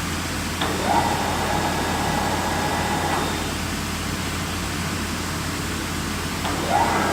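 Lagun FBF 1800 milling machine running with a steady low hum; a motor whine rises sharply about half a second in, holds for about two and a half seconds and stops, then rises again near the end.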